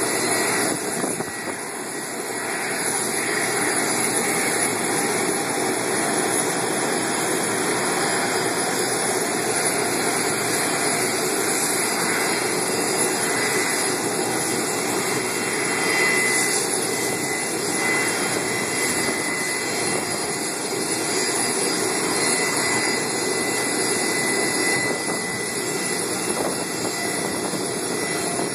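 Jet aircraft engines running on an airport apron: a steady rush of noise with a thin high whine, swelling a little about halfway through.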